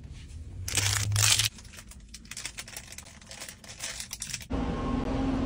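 A plastic fruit-snack pouch crinkling and being torn open, with a loud rustle about a second in and many small crackles after. Near the end a louder steady noise with a low tone sets in.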